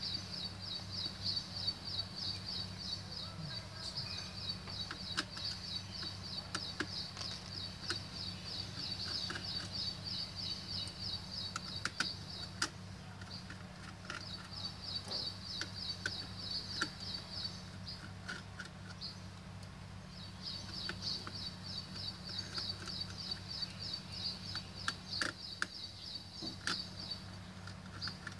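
Small clicks and taps of a screwdriver and metal screws as a laptop's heat-sink screws are undone, over a steady electrical hum. A high, fast chirping trill runs behind it in long stretches, breaking off about 13 seconds in and again around 18 to 20 seconds, and stopping near the end.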